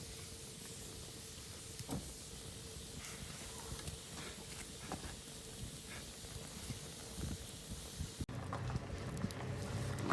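Wood campfire burning, a steady hiss with a few soft pops and crackles; about eight seconds in the sound cuts abruptly to a lower steady hum.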